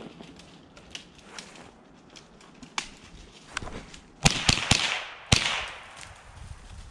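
Footsteps through dry leaf litter and patchy snow, with scattered twig snaps. From about four seconds in comes a louder run of sharp snaps and rustling of dry brush, lasting about a second and a half.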